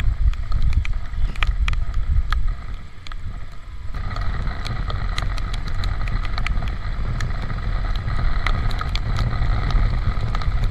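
Honda Supra GTR 150 motorcycle riding in rain: a steady low rumble of wind on the microphone and engine, with many sharp scattered ticks of raindrops striking the camera. A faint steady whine joins from about four seconds in.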